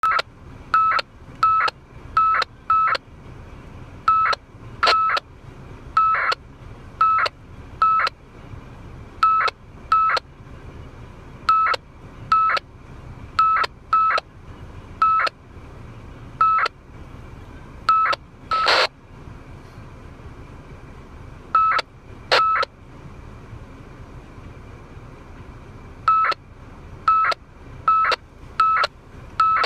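Unidentified data bursts received on a 2 m FM radio at 146.000 MHz: dozens of short beeps at one steady mid pitch, each about a quarter second with a click as it starts and stops, coming in irregular clusters over a low hiss. About 19 seconds in there is one longer burst of noisy static.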